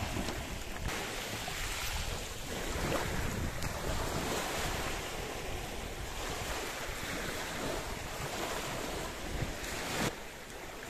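Small sea waves washing and breaking on a shallow shore, with wind buffeting the microphone; the sound drops a little quieter about ten seconds in.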